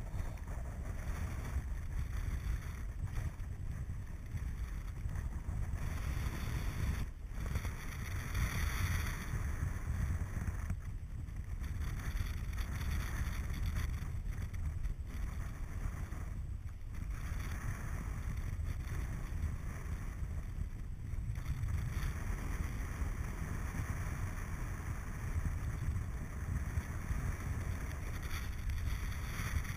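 Airflow buffeting the microphone of a camera mounted on a paraglider in flight, heard as a steady low rumble of wind noise.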